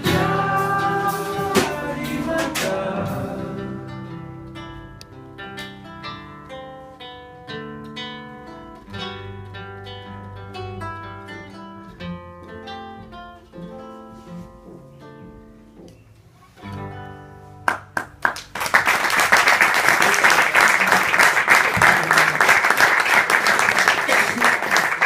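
Acoustic guitar picking the song's closing notes, slowing and fading out, with a couple of last sharp strokes. Then audience applause breaks out about three quarters of the way through and carries on.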